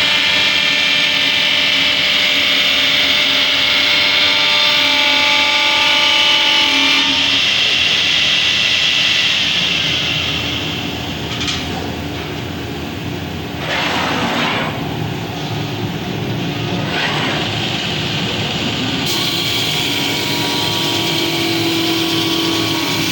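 CNC wood lathe running, a steady whine of motors and spindle with the noise of cutting. The whine shifts in pitch about a third of the way in and eases off, and a few brief hissing surges follow in the middle as the cutter works the wood.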